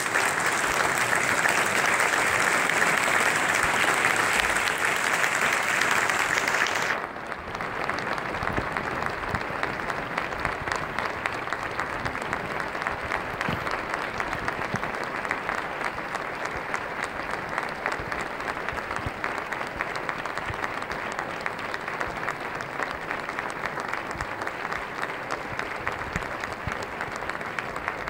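Theatre audience applauding at a curtain call, loud at first, then abruptly quieter about seven seconds in and continuing steadily.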